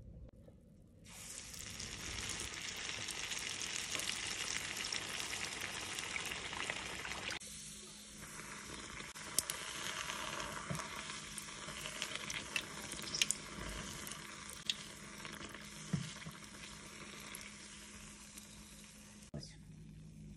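Batter frying in hot oil in a pan: a steady sizzle that starts about a second in, with scattered sharp pops and crackles through the middle, easing off near the end.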